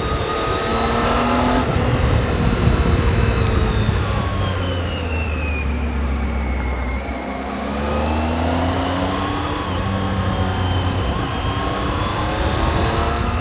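Triumph Tiger 800 XRx's inline three-cylinder engine on its stock exhaust, under way: the revs ease off to a low point about seven seconds in, then build again.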